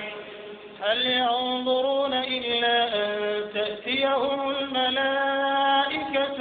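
A man chanting Quran recitation in a slow, melodic style, holding long notes that step up and down in pitch. It begins about a second in, after a short lull.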